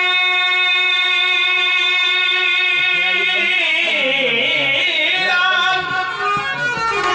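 Rajasthani devotional folk song: a long held note for the first few seconds, then a voice singing a wavering, gliding melody.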